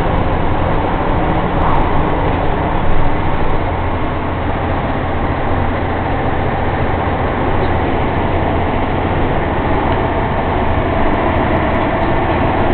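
Heavy truck's diesel engine running steadily, with tyre and road noise, heard from inside the cab while driving on a motorway.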